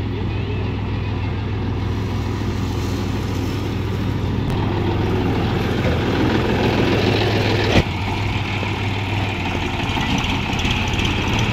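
John Deere 5045D tractor's three-cylinder diesel engine idling steadily, with a single sharp knock about two-thirds of the way through.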